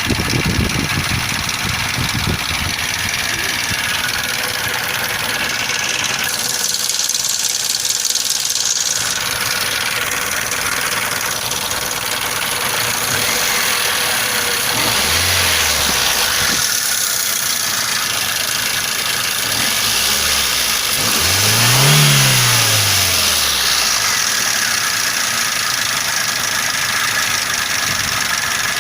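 Toyota 1SZ-FE 1.0-litre four-cylinder engine running, revved briefly twice, the second time higher, and dropping back to idle. It has a knock that the owner traces to the timing chain.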